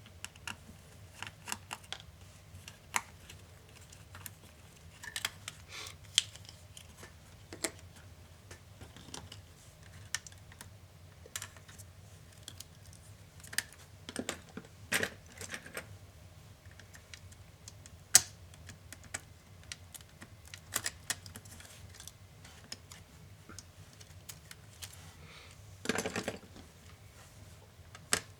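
Irregular small clicks, taps and light knocks of plastic and metal laptop parts and tools being handled during disassembly of an Acer Swift SF315, with a sharp click about 18 seconds in and a brief scraping rustle near the end.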